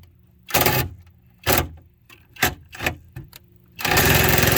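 Cordless power tool driving a bolt into a window regulator bracket, triggered in about six short spurts, then running steadily from about four seconds in. The bolt is going in crooked and is probably cross-threading a bit.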